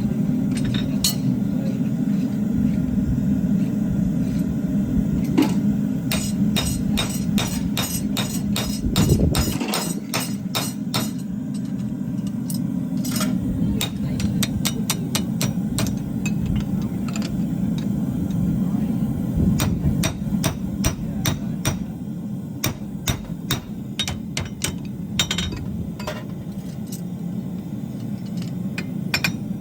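Farrier's hammer striking a steel horseshoe on the anvil in runs of quick, sharp metallic blows with short pauses between, over a steady low hum.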